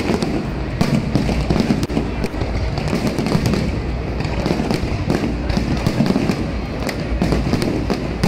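Aerial fireworks going off without pause: a dense crackle of many rapid pops and bursts over a low rumble.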